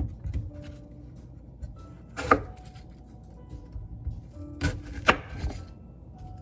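A kitchen knife knocking on a cutting board in a few separate strokes: one about two seconds in, then two in quick succession about five seconds in. Quiet background music runs underneath.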